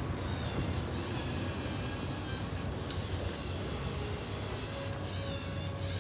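LEGO EV3 robot vacuum cleaner running its program, its electric motors giving a steady whirring hiss with a low rumble and a faint shifting whine, briefly dipping every second or two.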